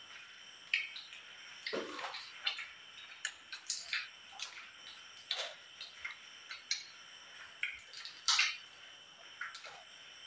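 Water dripping in many short, irregularly spaced drops and small plops, with light ticks between them.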